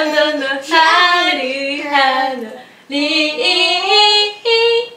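A little girl and a woman singing playfully together in long, sliding notes, with a short break a little past halfway.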